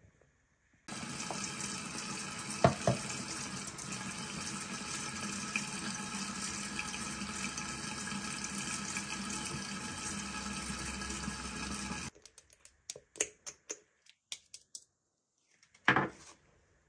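Bathroom sink tap running steadily for about eleven seconds, turned on about a second in and shut off abruptly. A few light clicks follow, then a louder knock near the end.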